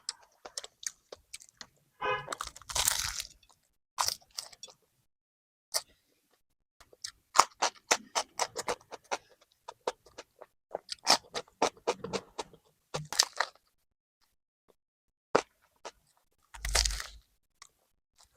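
Bites and chewing of a crusty bánh mì baguette sandwich: irregular crisp crunches and crackles of the bread crust, busiest in the middle with short pauses between mouthfuls, and a fuller, duller burst near the end.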